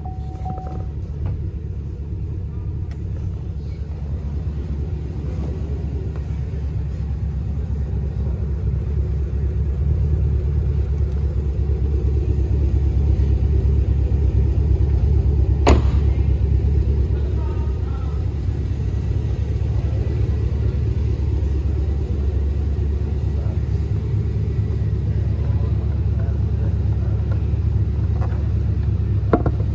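The Camaro SS's 6.2-litre V8 idling steadily with a low rumble, swelling a little for a few seconds halfway through and then settling back. A single sharp click comes about sixteen seconds in.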